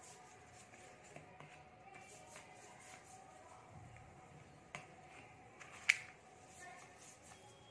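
Paintbrush tapping in a metal watercolour paint tin: two sharp clicks about five and six seconds in, the second the louder, over a faint steady hum and a few small clicks.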